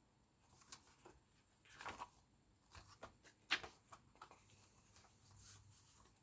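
Near silence, with a few faint, brief paper-handling rustles as a small stapled children's book is pulled apart, the clearest about two seconds and three and a half seconds in.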